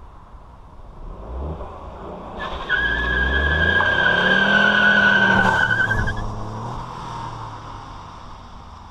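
Ford Fiesta 1.0 car accelerating hard toward and past the camera, its engine note rising and then loud for a few seconds before fading away. A loud high-pitched whine rides over the engine for about four seconds and cuts off as the car goes by.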